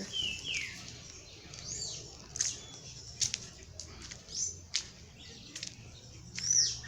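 Birds calling: a series of sharp chirps and short whistled notes that fall or arch in pitch, the loudest near the end.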